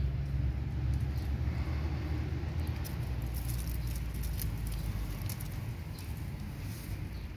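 Wind rumbling on the microphone, strongest in the first few seconds. From about three seconds in, it is overlaid by many dry, crackly clicks.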